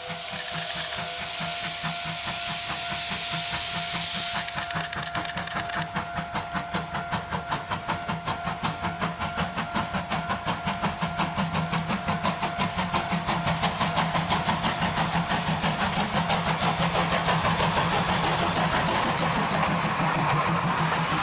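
C12 66 steam tank locomotive starting a train: a loud steam hiss cuts off about four seconds in. Then its exhaust chuffs come regularly and quicken steadily as the engine gathers speed.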